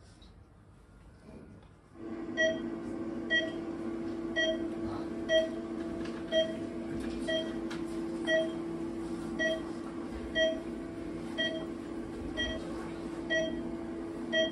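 Electronic beeping, one short beep about every second, over a steady electronic hum that starts abruptly about two seconds in: a sci-fi lab or monitor sound effect.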